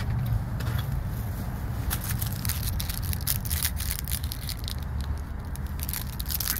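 Steady low rumble of a car cabin on the move, with crackling rustles close to the phone's microphone from about two seconds in, as fabric brushes against it.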